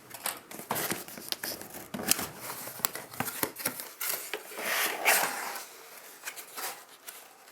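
An Apple Watch box being opened and handled: irregular rustling and scraping of packaging, with many small clicks and knocks and a couple of louder rustling swells.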